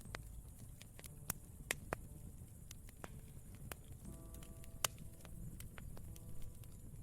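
Campfire crackling: irregular sharp pops and snaps over a low steady rumble, the loudest pops about a second and a half in and near five seconds. Soft sustained piano notes sound faintly from about four seconds in.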